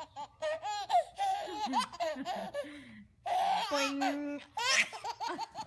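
High-pitched laughter: a voice laughing in quick repeated bursts.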